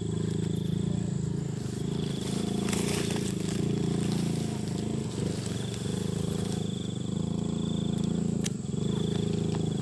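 Steady low droning hum. Over it, a high, pulsing insect trill comes and goes three times, in the forest undergrowth.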